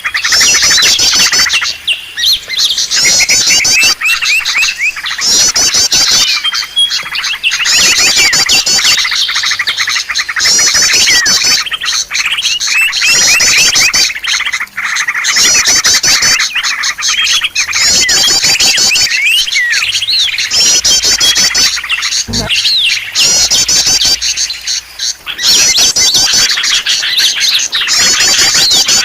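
Small songbirds chirping noisily in a looped lure recording for trapping wild birds: bursts of rapid, high trilled chirps every second or two over continuous busy twittering.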